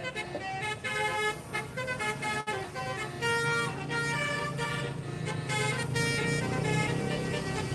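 A bus's 'telolet basuri' multi-tone horn playing a melody in quick stepping notes. Under it a bus engine runs, getting louder toward the end.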